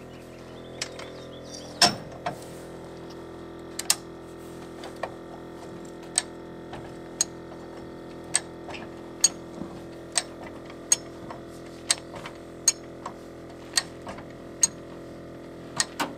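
Hi-Lift jack clacking about once a second as its handle is pumped, its climbing pins ratcheting up the steel bar to raise the front of a vehicle with a flat tire. A steady hum runs underneath.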